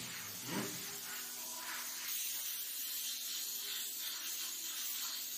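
Small gravity-feed paint spray gun hissing steadily as compressed air sprays paint onto a wall, with a faint low steady hum underneath.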